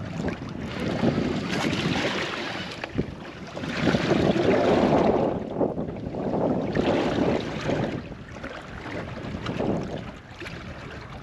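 Wind gusting over the microphone on a small boat at sea, rising and falling every few seconds, with water sloshing against the hull.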